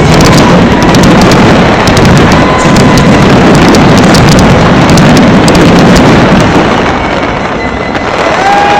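Dense barrage of fireworks going off: continuous crackling with many close-packed bangs, loud enough to overload the recording, easing a little near the end.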